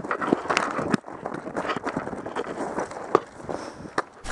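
Hurried footsteps and clothing rustle of a player moving quickly, a dense irregular patter, with a few louder sharp snaps about three and four seconds in.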